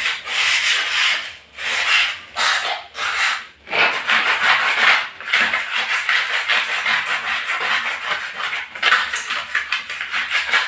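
Plastic scraper scraping dried cement off ceramic floor tiles in repeated strokes, the strokes getting quicker and shorter near the end.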